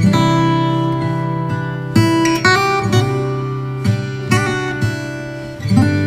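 Background music of a strummed acoustic guitar, its chords struck afresh every second or two.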